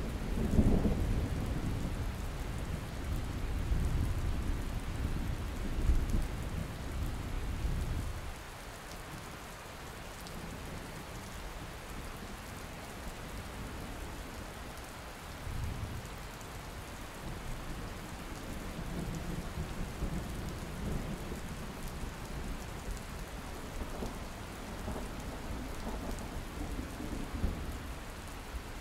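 Thunderstorm over a city: rain falling steadily, with thunder rumbling loudest at the start and dying away about eight seconds in, and a fainter rumble returning in the second half.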